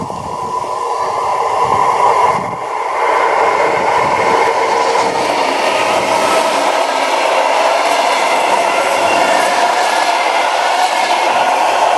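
Red-and-white electric commuter train approaching and running past close by. A steady whine builds over the first two seconds, then wheels on rails give a dense, steady rush of noise as the carriages go by.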